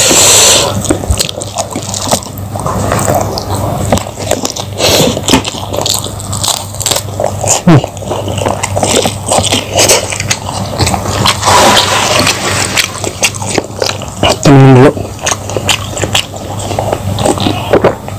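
Close-miked eating: wet chewing and lip-smacking as rice and fried fish are eaten by hand, many quick irregular mouth clicks. About fifteen seconds in, a short hum from the throat stands out as the loudest sound.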